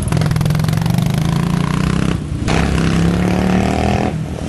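Royal Enfield Thunderbird's single-cylinder engine running through a custom exhaust, revving, with a short break about two seconds in.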